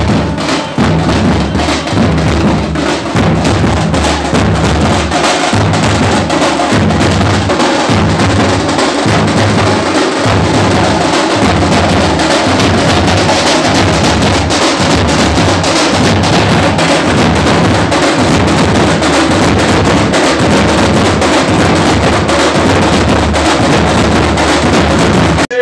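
A street band of drummers beating large double-headed drums with sticks, playing a loud, steady, driving rhythm without a break.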